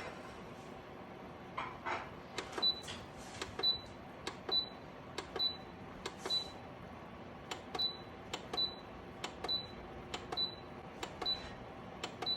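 Buttons on a GiveBest space heater's control panel or remote being pressed about once a second, each press a click followed by a short high electronic beep, about eleven times.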